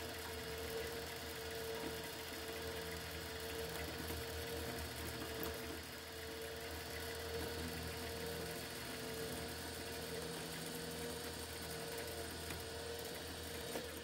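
Vertical milling machine running with an end mill cutting a slot through a metal part: a steady motor and spindle hum with a constant mid-pitched whine. It stops suddenly at the end.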